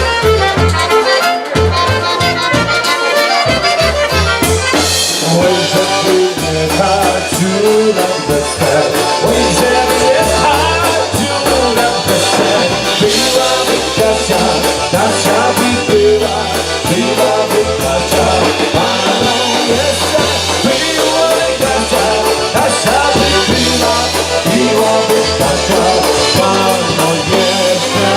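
Live polka band playing an instrumental passage of an oberek, with accordion and brass over a bouncing bass line and a steady drum beat.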